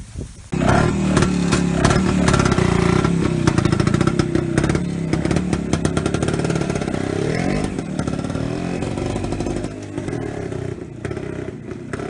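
Small vintage motorcycle engine running and revved as the bike pulls away and rides off, rising in pitch a few times and fading as it goes into the distance.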